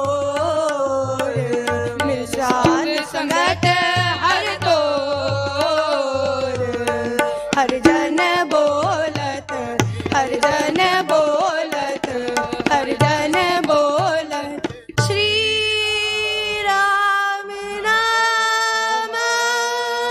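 Gurbani kirtan: a woman singing with harmonium and tabla accompaniment. About three-quarters of the way in the music changes abruptly to steadier held notes with fewer tabla strokes.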